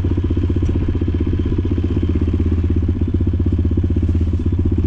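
Motorcycle engine running steadily, with a fast, even beat that holds constant throughout.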